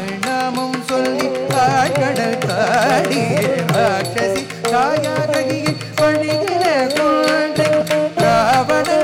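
Carnatic music accompanying Bharatanatyam in Ragamalika set to Misra Chapu tala: a melody with wavering, sliding ornaments over a steady pattern of mridangam strokes.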